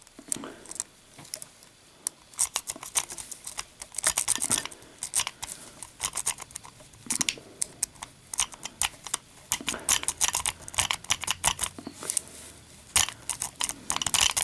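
A lock-pick city rake worked in and out of a small padlock's keyway under a tension tool: quick, irregular metallic scraping and clicking as the rake jiggles over the lock's internals.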